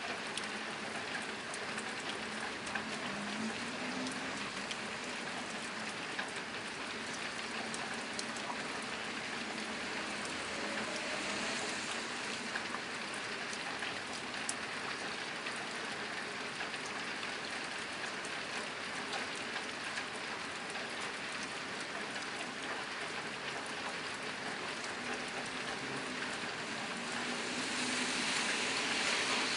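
Steady rain drumming on a tin roof: a dense, even patter of drops, swelling a little louder for a moment near the end.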